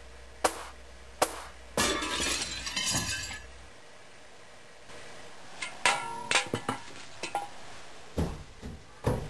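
Two sharp knocks, then glass shattering with tinkling for about a second and a half; later, scattered smaller clicks and knocks.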